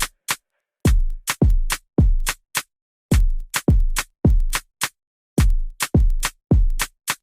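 Background music: a bare drum-machine beat of punchy kick-drum hits in a steady rhythm, with silence between the hits.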